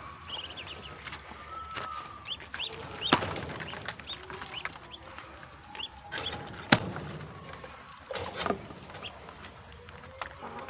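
Muscovy ducklings peeping in short, rising chirps as they feed. A few sharp clicks or knocks cut through, the loudest about three seconds and about seven seconds in.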